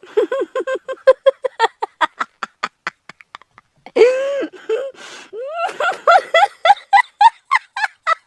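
A woman's voice laughing, high-pitched: a quick run of short 'ha-ha' pulses that trails off about three seconds in, a long drawn breath at about four seconds, then another run of laughter rising in pitch.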